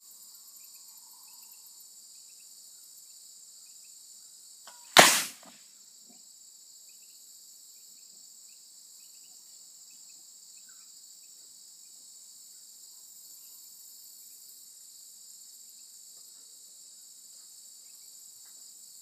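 An arrow strikes and punches through a can of compressed air, making one sharp, loud bang about five seconds in with a brief tail. Crickets and insects chirp steadily in the background.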